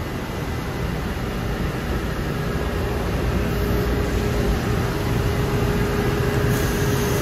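Steady hum of powered-up industrial machinery. A steady mid-pitched tone comes in about two and a half seconds in, and the hum grows slightly louder.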